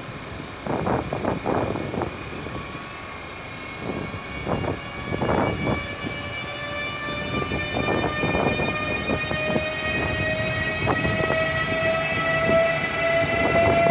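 ÖBB Taurus electric locomotive under way, its traction motors giving an electric whine of several tones that rise slowly in pitch as it gathers speed, over an uneven rumble.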